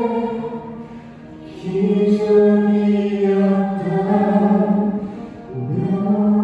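Mixed vocal quartet singing a Korean ballad in harmony through handheld microphones, holding long notes, with a short break between phrases about a second in and another near the end.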